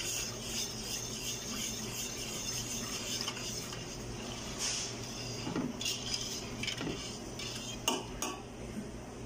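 Wire balloon whisk stirring a milky maja blanca mixture in a large stainless steel pot, its wires scraping and rattling against the metal. There are two sharp clinks of the whisk on the pot near the end.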